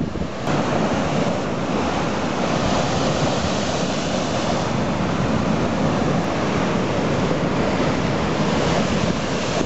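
Rough storm sea: large waves breaking and crashing in a continuous, steady rush of surf, with wind buffeting the microphone.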